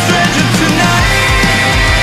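Loud background rock music with a steady beat.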